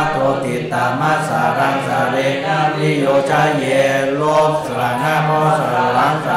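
Pali text chanted in a steady, evenly pitched voice with hardly a pause.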